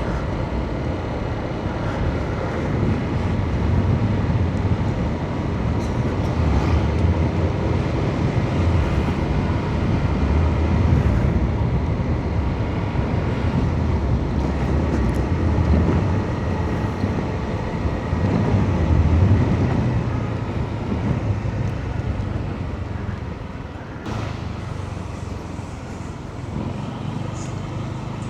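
Motorbike on the move: its engine running under a low, uneven rumble of wind and road noise. The sound drops a little about 24 seconds in.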